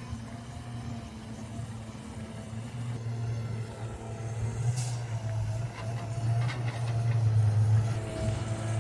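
Diesel engine of a heavy earthmoving machine running steadily with a low hum, growing louder in the second half, with a brief hiss and a few faint clicks.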